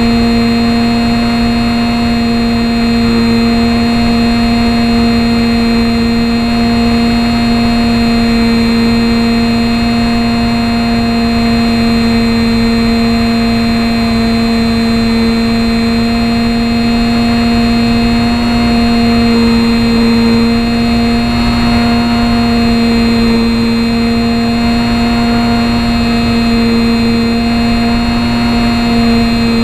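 Small electric motor and propeller of a HobbyZone Champ RC plane buzzing at a steady pitch in flight, heard from a camera mounted on the plane, over a rushing hiss of wind on the microphone.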